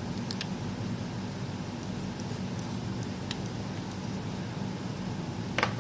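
Steady low electrical hum of background room noise, with a few faint light clicks of small tools and parts being handled during phone repair, the sharpest one near the end.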